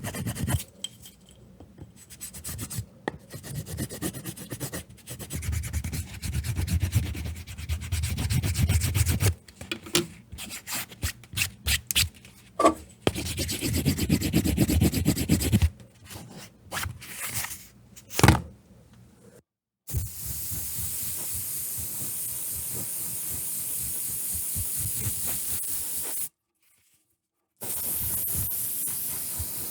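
Leather being worked by hand with rubbing, sanding strokes in quick runs with short pauses, typical of sanding or burnishing a wallet's edges. About two-thirds of the way through this gives way to a steady, even hiss that breaks off briefly near the end and then resumes.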